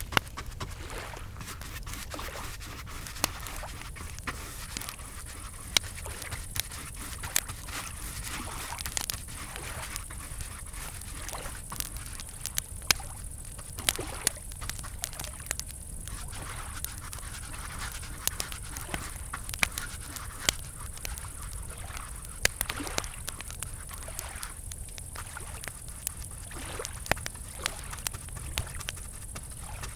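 Campfire crackling, with irregular sharp pops and snaps, over a steady high-pitched chirring of crickets.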